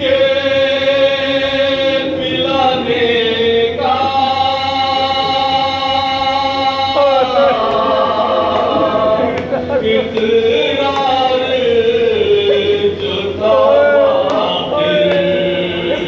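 A man chanting an Urdu noha, a mourning lament, unaccompanied, into a microphone, holding long notes that slide and waver in pitch with short breaks between phrases.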